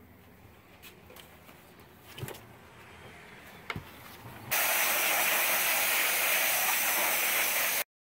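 A few faint clicks over quiet background, then a loud, steady hiss starts abruptly about halfway in and cuts off sharply near the end.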